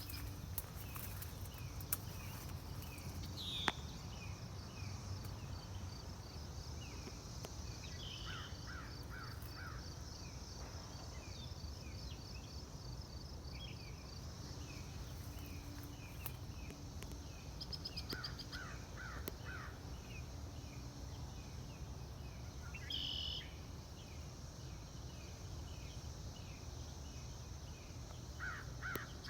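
Birds calling over a low, steady rumble. A short phrase of four quick notes comes back about every ten seconds, with softer chirps in between.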